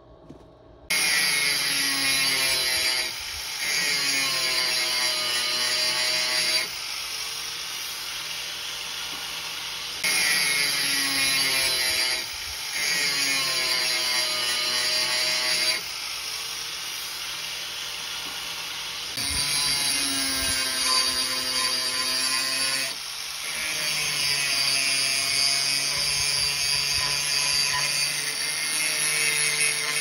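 Angle grinder grinding down the steel bell-shaped base of a tractor's loader joystick shaft, in several passes. Louder stretches alternate with quieter ones, and the motor's pitch dips and recovers as the disc bites in and eases off.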